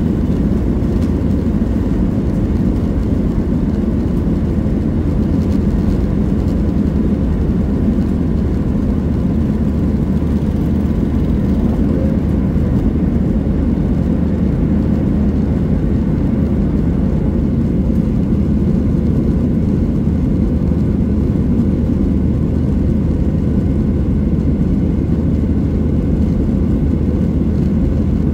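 Cabin noise inside a Boeing 737 airliner: a steady, deep drone of the jet engines and rushing air, even throughout, with a faint steady hum above it.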